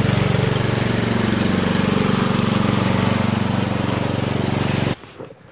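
Cub Cadet riding lawn mower's engine running steadily with a fast, even chugging pulse. The sound cuts off suddenly near the end.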